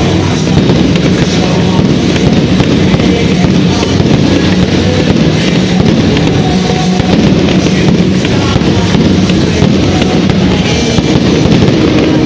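Loud music playing together with a fireworks display, with constant cracking and popping of bursting fireworks.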